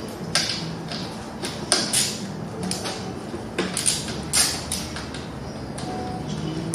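Scattered clicks, knocks and light clatter of hand tools and small parts being handled during work on an electric dirt bike, about half a dozen sharp ones in the first four or five seconds.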